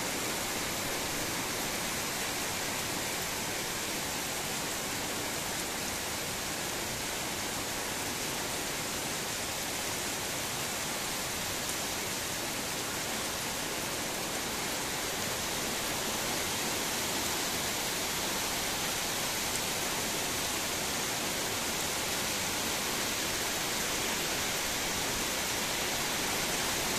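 Heavy rain falling steadily, an even hiss with no single drops or other events standing out.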